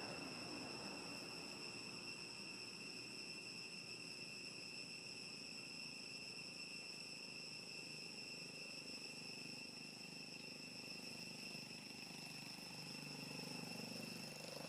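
Steady, high-pitched insect drone: one unbroken tone with fainter overtones above it, over a low hiss of outdoor background noise.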